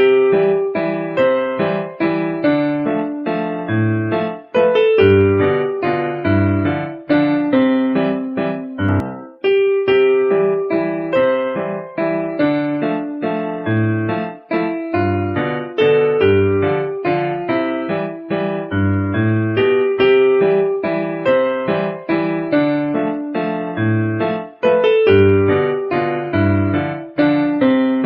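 Background music: a piano or electric-piano melody over low bass notes, with many short struck notes.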